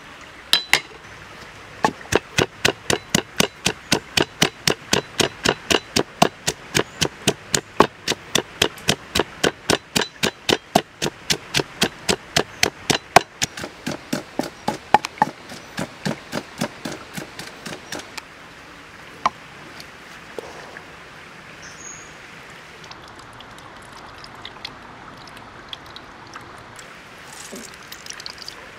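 Wooden pestle pounding sliced plant matter in a wooden mortar: steady knocks about two or three a second that turn irregular and stop a little past halfway. Near the end, juice squeezed by hand from the pounded mash trickles into a coconut-shell bowl.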